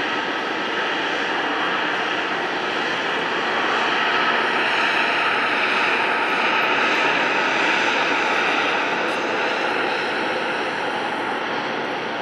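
Jet airliner's engines rushing as the plane passes, growing louder about four seconds in and easing off near the end.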